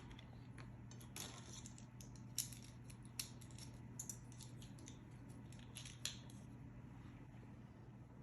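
Faint, light clicks and clinks of small kitchen utensils, half a dozen scattered over about five seconds and stopping after about six seconds, over a steady low hum.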